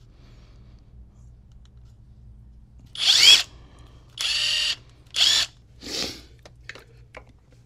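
Cordless impact driver run in four short bursts about half a second each, its motor whining up in pitch at each pull of the trigger while tightening nuts on the battery pack. A few light clicks follow near the end.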